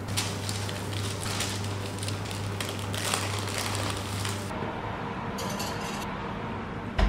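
Baking paper and disposable plastic gloves crinkling and rustling as a fish is wrapped, over a steady low hum. Near the end comes a single loud thump.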